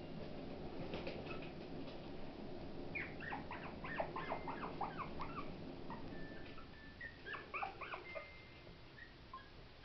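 Maltipoo puppy whimpering: a quick run of short, high squeals, each falling in pitch, about three seconds in, then a few more a little later.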